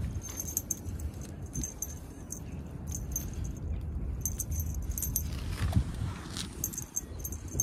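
Small jingle bell on a feather-wand cat toy, tinkling on and off as the wand is jiggled, over a low steady rumble.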